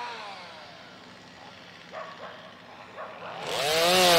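A gas chainsaw revs up about three and a half seconds in and runs loud and steady at high speed, cutting storm-downed branches. Before it, a faint whine rises and falls in pitch, and two small knocks sound.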